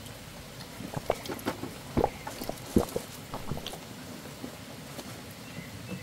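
Faint scattered clicks and small knocks over a steady low hiss.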